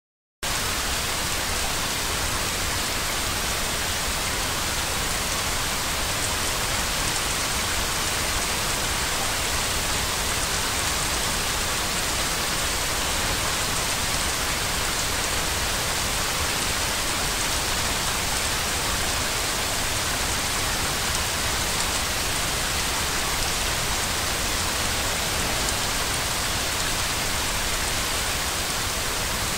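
Steady, unchanging hiss of white noise, a shushing sound for lulling a baby to sleep, starting about half a second in.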